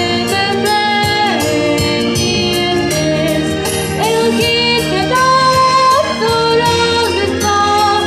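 A Bulgarian folk-style song: a female voice singing held, sliding notes over instrumental accompaniment with a steady beat.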